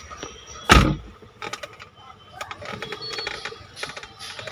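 Handling noise: one loud, dull thump just under a second in, then scattered light clicks and rattles as the diagnostic tablet in its rubber case is moved about.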